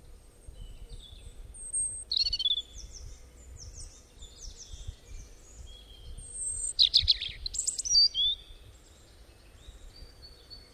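Several songbirds chirping and whistling in quick, high-pitched phrases, busiest and loudest about seven to eight seconds in, over a faint low rumble.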